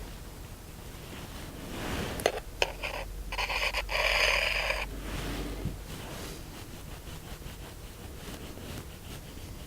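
Metal parts being handled on the bench: two sharp metallic clicks a little over two seconds in, then about two seconds of scraping, with quieter handling noise after.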